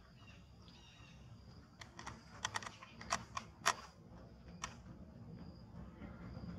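About ten short, sharp clicks and taps in an irregular run, from about two to five seconds in, as a baby macaque feeds at a small drink carton held in a person's hand.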